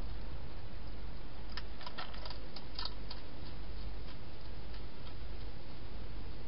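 Wild hedgehog eating inside a plastic feeding box: a run of sharp, crisp clicks from its chewing, densest between about one and a half and three seconds in, then fainter and sparser, over a steady background hiss.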